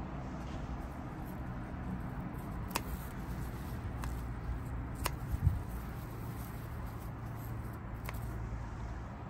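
Garden scissors snipping pansy stems, three sharp snips a few seconds apart, over a steady low background rumble. A dull low thump comes just after the second snip.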